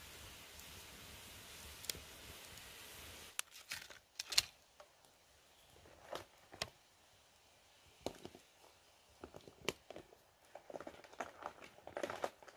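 Water hissing steadily as it heats in a hot iron wok over a wood fire. About three seconds in the hiss cuts off, and scattered clicks, knocks and crackles follow as firewood is handled and pushed into the fire beneath, with a busier patch near the end.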